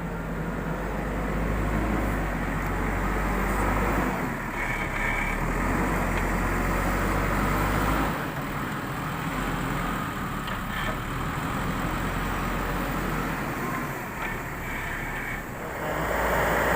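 JCB backhoe loader's diesel engine running while it loads soil into a tipper truck, its level shifting every few seconds with the work. A brief high whine comes about five seconds in and again near the end.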